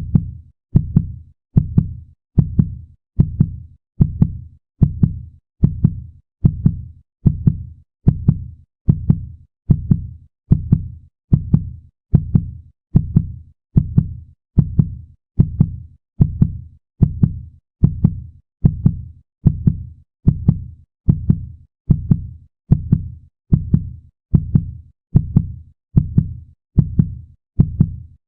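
Heartbeat sound effect: a steady, even heartbeat, a little over one beat a second, each beat a pair of low thumps.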